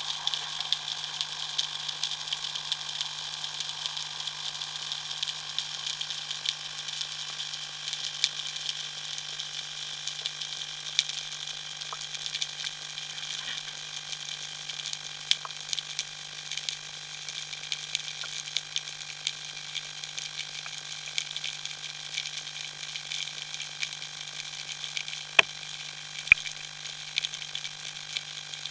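Underwater ambience: a dense, continuous crackle of small clicks over a steady low hum, with two sharper knocks about a second apart near the end.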